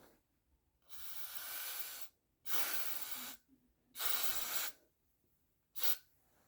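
Got2b aerosol hairspray sprayed in bursts onto the hairline to hold the lace down: three hisses of about a second each, then a short fourth one near the end.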